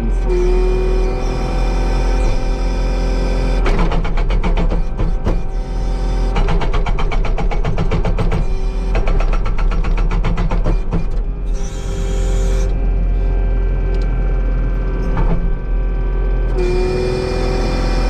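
Skid steer's engine running with a hydraulic whine that rises briefly just after the start and again near the end. An Agrotk 680 hydraulic breaker hammer attachment pounds in three runs of rapid blows, about ten a second, between about four and eleven seconds in.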